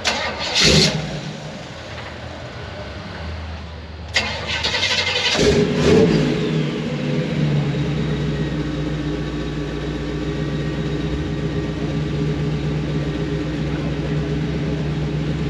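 A vintage Ford pickup's engine starts about four seconds in, revs up sharply a couple of times, then settles into a steady idle. A short loud burst comes about half a second in.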